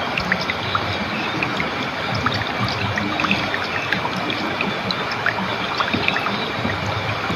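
Water flowing and trickling gently in a steady stream, with many small splashes and drips through it.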